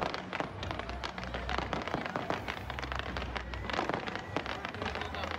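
Fireworks going off: a dense, continuous crackle of many small rapid pops over a low rumble.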